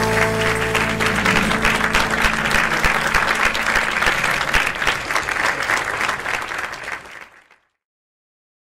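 A studio audience applauding. The last held chord of the music dies away under it in the first couple of seconds, and the applause fades out about seven seconds in.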